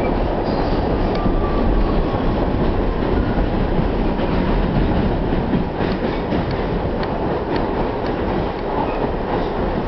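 New York City subway car running, with a steady noise of wheels on rails heard from inside the car.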